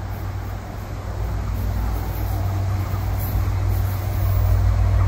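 Metro-North diesel locomotive 4908 approaching with a passenger train, its engine making a steady low rumble that grows louder as it nears.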